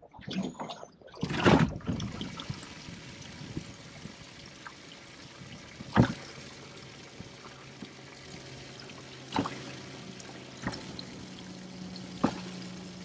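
Water pouring and trickling steadily into a boat's live well from its fill hose. A loud knock comes in the first couple of seconds as the floor hatch is lifted, and sharper knocks follow about four times as hands and fish move in the well.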